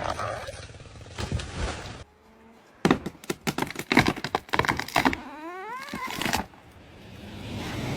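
A running chainsaw cuts out about two seconds in. A run of sharp cracks and snaps follows, then a single wavering pitched cry that rises and falls.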